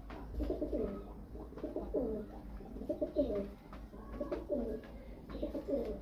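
Domestic pigeons cooing: a run of low warbling coos about once a second, with faint ticks between them.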